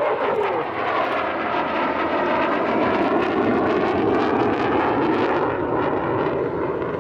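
F-16 Block 40 Fighting Falcon's General Electric F110 turbofan running loud during a low display pass, a steady jet roar. Its higher range fades over the last second or so as the jet moves away.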